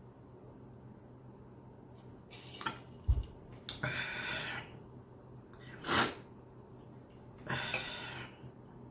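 Close-up eating sounds of a toothless person gumming a bite of steak: short noisy breaths and mouth sounds about every two seconds, with a low thump about three seconds in.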